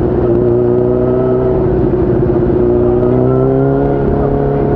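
Suzuki GSX-R1000's inline-four engine running steadily while riding, its pitch creeping up in the second half as the revs rise, over a low rumble of wind.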